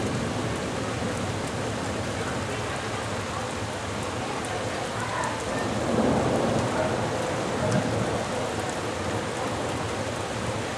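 Heavy thunderstorm downpour: rain hissing steadily, with a louder low rumble of thunder about six seconds in.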